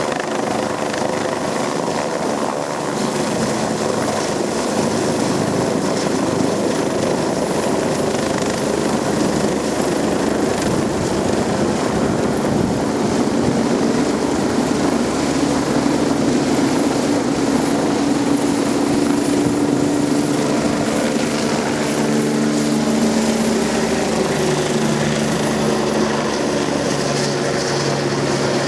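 Helicopter at close range, its rotor and engine running steadily and loudly, the engine tones shifting in pitch partway through. The rotor downwash blows hard, as strong as typhoon wind.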